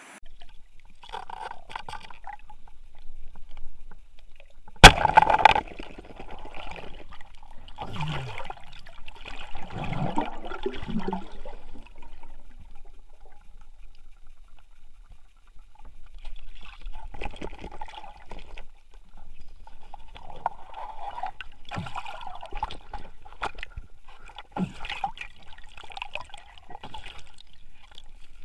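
Water splashing and sloshing in irregular bursts, with a single sharp bang about five seconds in that is the loudest sound.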